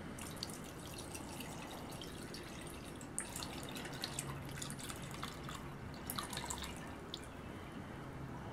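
Rubbing alcohol poured in a stream from a plastic bottle into a glass dish, splashing and trickling over a plastic action figure as the dish fills, thinning out near the end.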